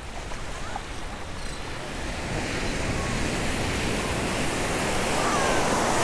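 Ocean surf washing up the beach, a steady rush that slowly grows louder through the second half.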